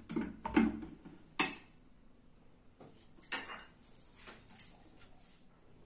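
Metal spoon scraping and knocking against the inside of a steel mixer-grinder jar while loosening ground sago powder, a run of clinks with the sharpest about a second and a half in. A few lighter clinks follow as the spoon is set down.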